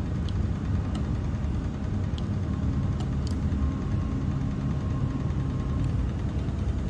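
Steady low hum of running machinery, with a few light clicks and a faint thin whine in the middle.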